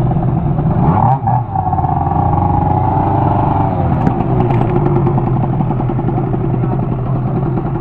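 Motor scooter engine revving as the scooter moves off. Its higher tone holds and wavers, then drops about four seconds in, over the steady drone of other motorcycle engines running.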